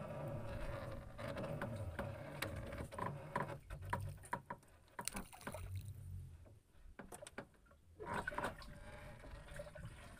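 Small wooden boat on the sea, water moving against the hull, with scattered knocks and ticks as a longline is hauled in by hand over the gunwale.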